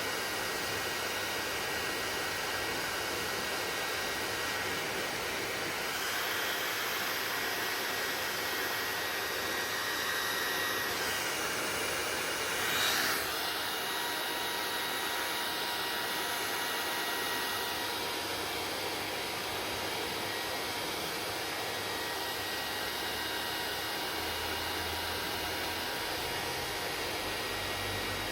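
Hair dryer running steadily: a continuous rush of air with a faint whine. Its tone shifts a few times, with a brief louder swell about thirteen seconds in.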